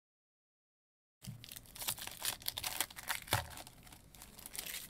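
Silver foil wrapper of a Topps Series 1 baseball card pack being torn open and crinkled by hand. It is a dense crackle with many sharp clicks, starting about a second in.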